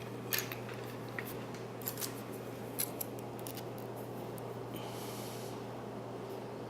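Lock pick and tension wrench working the pin tumblers of a large Hurd padlock: scattered small metallic clicks and scrapes, with a brief scratchy rasp about five seconds in, over a steady low hum.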